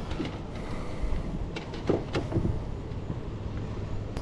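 Boat engine running steadily, with wind on the microphone and a few light knocks about two seconds in.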